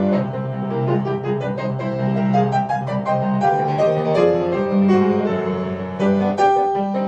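Solo piano playing: a busy flow of notes in the middle register over held low bass notes, in classical style.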